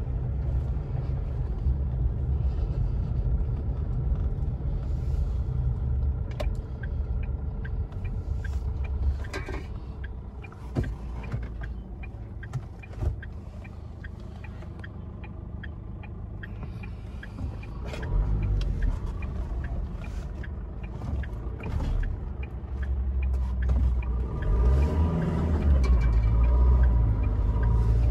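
Low rumble of a car's engine and tyres heard from inside the cabin while driving. It eases off about a third of the way in, then grows again as the car picks up speed, loudest near the end.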